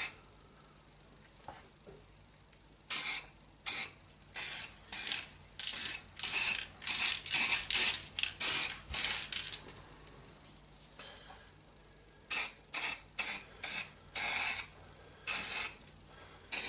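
Aerosol spray can of primer hissing in short bursts, about a dozen quick squirts, a pause of a couple of seconds, then about six more with one longer one, as primer is sprayed onto metal drill parts.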